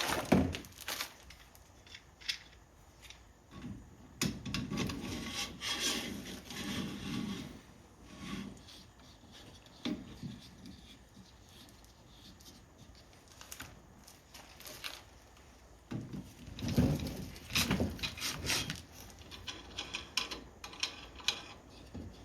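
A bike-rack J-hook being worked into place on the rack's arm: scraping, rubbing and sharp clicks and knocks of hard parts against each other, loudest in a cluster about 17 seconds in.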